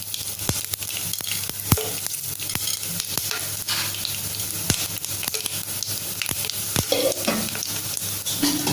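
Whole spices (bay leaf, fennel seeds, stone flower and cinnamon) sizzling in hot oil, with scattered sharp pops and crackles as they fry. This is the tempering of the spices, the first stage of the biryani masala.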